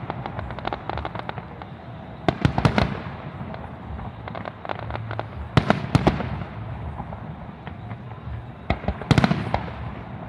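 Aerial fireworks shells bursting: groups of sharp bangs about two and a half, six and nine seconds in, with lighter crackling between them.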